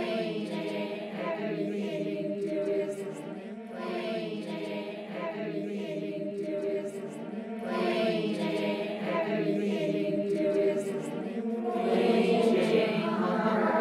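Choral chanting music over a steady low drone, swelling louder in the last couple of seconds.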